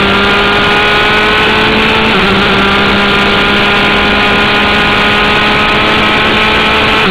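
Formula 3 race car engine heard through the onboard camera, running hard under acceleration with its pitch slowly climbing. The pitch drops briefly about two seconds in, as at an upshift, then climbs again.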